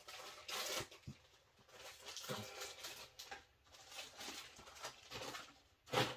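Plastic model-kit parts and bags being handled and rummaged through: faint rustling and light clicking in short, irregular bursts, the loudest near the end.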